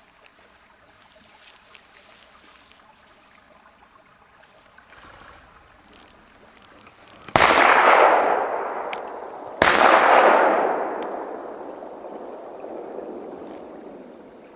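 Two shotgun shots about two seconds apart, each loud and sudden and trailing off over a couple of seconds.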